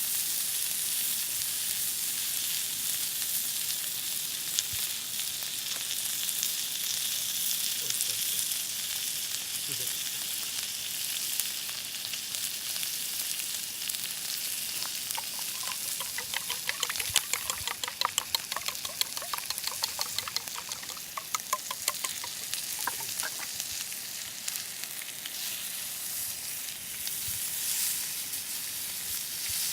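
Sukiyaki meat sizzling on a thick iron griddle: a steady frying hiss. About midway, for several seconds, a run of quick sharp pops and crackles.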